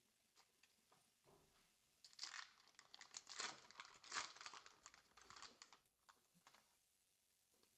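Foil booster pack wrapper crinkling as it is handled and torn open, a dense crackly run starting about two seconds in and lasting about four seconds, with a few faint light ticks before it.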